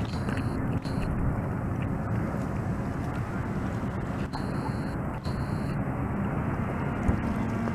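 Steady low outdoor rumble, with no clear goose honks standing out.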